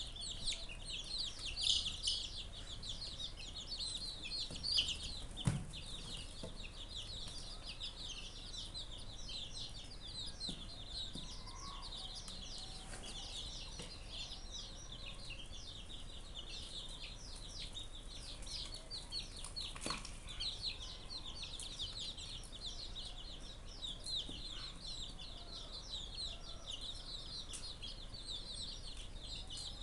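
A group of young chicks peeping nonstop, many short, high calls overlapping, with a couple of brief knocks.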